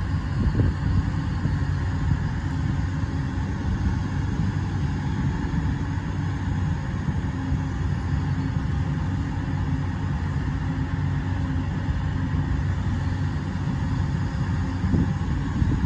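Hyundai R210 crawler excavator's Cummins diesel engine running steadily while the hydraulic boom and arm are worked.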